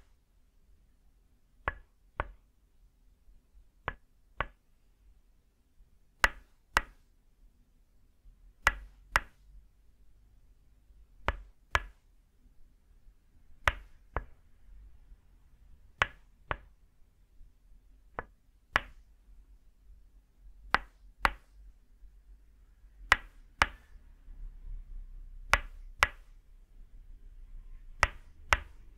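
Tok sen wooden mallet striking a wooden peg held against the upper back, in pairs of sharp knocks about half a second apart, with a pair every two and a half seconds or so.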